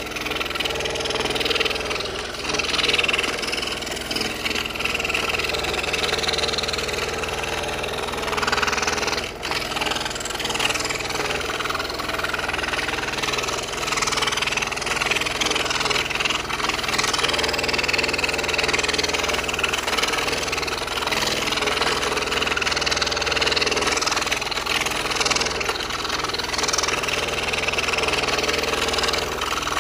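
Scroll saw running steadily, its fine blade cutting curved jigsaw-puzzle pieces out of a thin wooden panel.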